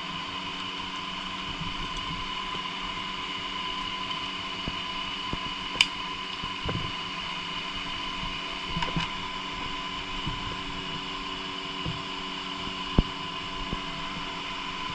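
Steady machine hum with several fixed tones, broken by a couple of short sharp clicks.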